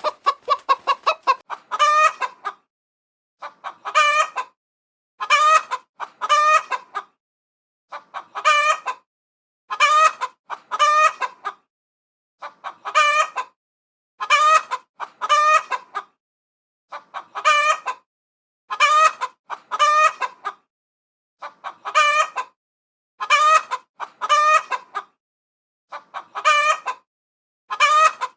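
Chickens calling: a quick run of clucks in the first second, then pairs of short, wavering calls repeating about every two seconds, with silence between.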